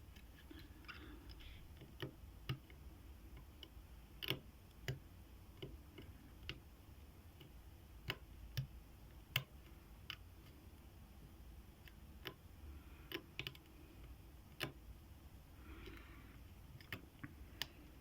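Faint, irregular metallic clicks and ticks from a lock pick working the pins of a 40 mm Syneco padlock during single-pin picking, a few sharper clicks standing out among softer ones.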